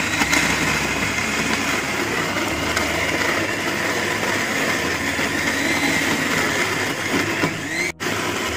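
Electric mixer grinder running steadily at full speed, grinding minced chicken with herbs and oil into a paste. It cuts out for an instant near the end and starts again.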